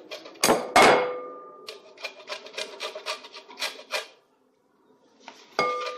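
Orange peel being grated on a metal box grater: quick rasping strokes, several a second. Two loud knocks about half a second in and another near the end each leave a short ringing tone, and the strokes stop for about a second past the middle.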